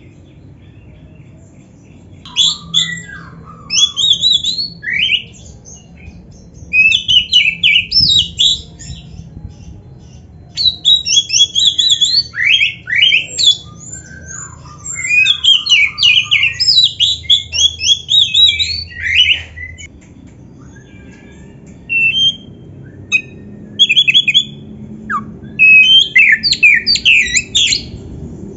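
Black-breasted Oriental magpie-robin (kacer) singing loudly in rapid strings of quick high notes that sweep up and down, in phrases of one to four seconds broken by short pauses.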